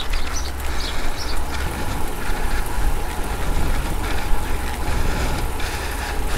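Wind buffeting the microphone of an action camera on a moving bike: a steady low rumble with a rushing noise over it.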